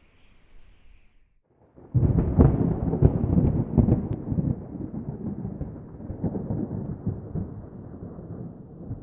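Thunder: a loud crack begins suddenly about two seconds in, with sharp crackles over the next two seconds, then a long low rumble that slowly weakens.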